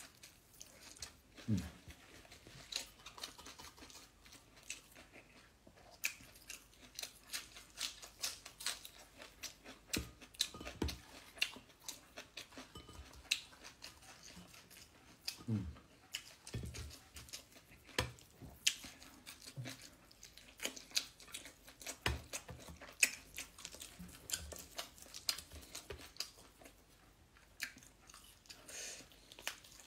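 A person chewing and smacking their lips while eating chicken and rice by hand: many short, irregular wet clicks and smacks.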